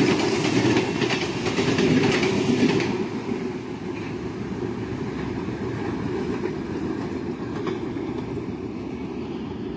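Nilsagor Express passenger coaches rushing past at speed, their wheels clattering over the rail joints. About three seconds in, the sound changes to a quieter, steady rumble as the train approaches from a distance.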